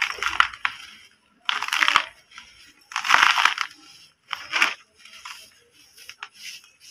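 Hands crushing and crumbling dry, dusty balls of packed yellow brick dirt, a gritty crunch in bursts: four strong crunches in the first five seconds, then softer crumbling as the powder falls.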